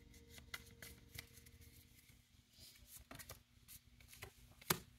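Playing cards being handled: faint, scattered clicks and light rustles, with one sharper tap near the end, over a faint steady hum.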